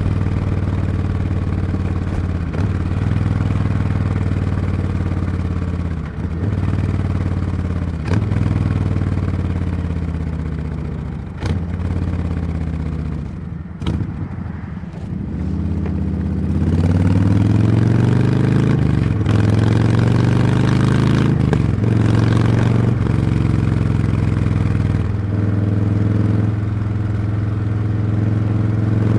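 Harley-Davidson V-twin motorcycle engine and exhaust under way, heard from the rider's seat. The pitch climbs and drops through a series of gear changes, eases off and falls in the middle, then picks up and gets louder again just past halfway.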